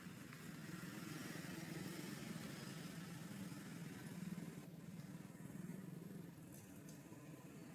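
Faint motorbike engine running: a steady low hum with some hiss, a little louder through the middle.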